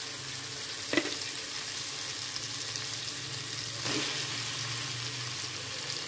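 Spice paste of shallot, garlic, turmeric and candlenut sizzling steadily in oil in a wok. There is one sharp knock about a second in. The sizzle swells a little before four seconds in as raw peeled shrimp go into the hot pan.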